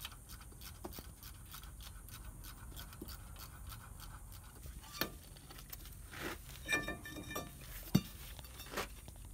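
Faint metal clinks and scrapes as a rusty brake rotor is worked off a truck's front hub, one clink ringing briefly, with a sharper knock near the end.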